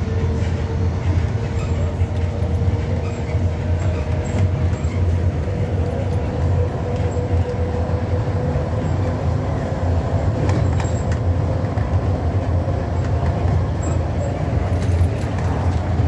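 Steady low rumble of a moving vehicle heard from inside, with a faint steady whine above it.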